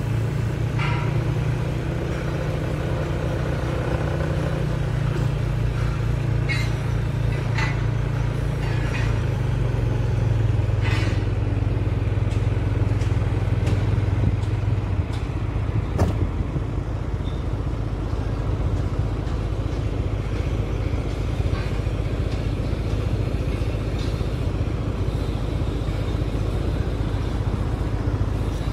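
Diesel engine of a heavy low-bed truck idling with a steady low hum, with a few short clinks and knocks over it.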